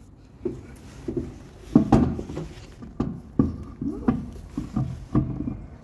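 A string of irregular metallic clunks and taps, each with a brief ring, as a centre-lock road wheel is handled and seated onto its splined hub.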